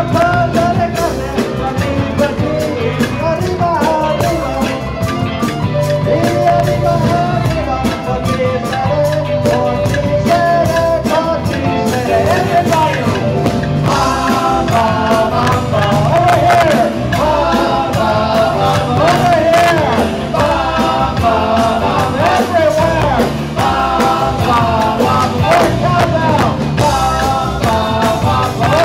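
Live rock-and-roll band playing, with electric and acoustic guitars and a drum kit keeping a steady beat under a sung melody. From about halfway, several voices sing along together.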